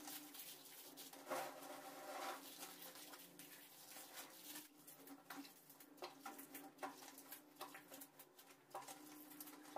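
Faint patter and scattered small clicks of stone chips being thrown by hand onto a freshly poured terrazzo surface and spread over it.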